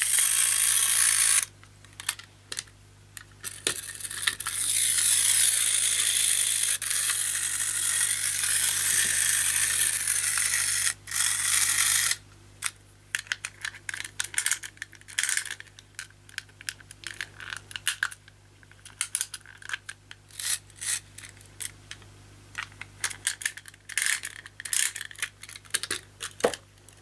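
Clockwork motor of a vintage Marx Motorway toy car whirring steadily in short runs, for about seven seconds in the longest. After that comes a long run of light, irregular metallic clicks and ticks from the wind-up mechanism and key being worked.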